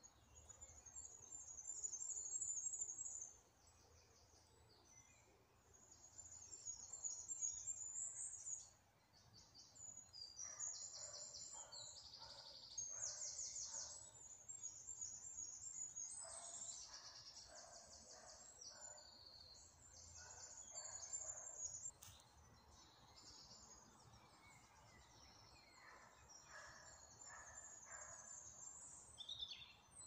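Songbirds singing: bursts of high, rapid twittering phrases a few seconds long with short pauses between, and lower repeated notes mixed in from about ten seconds in.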